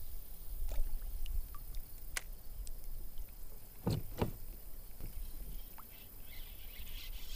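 Kayak on the water: scattered light clicks and taps of paddle and gear against the hull, with two sharper knocks in quick succession about four seconds in, over a low rumble.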